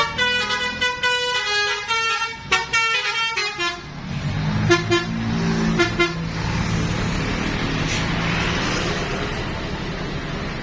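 GM Trans bus's 'telolet' multi-tone musical horn playing a quick stepping melody for the first few seconds, then two short toots about five and six seconds in. The bus's engine runs steadily underneath.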